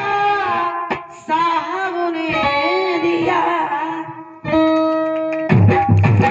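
Live Indian stage music: a wavering melody with vibrato over a band, breaking off briefly twice. About four and a half seconds in comes a held chord, then drum beats near the end.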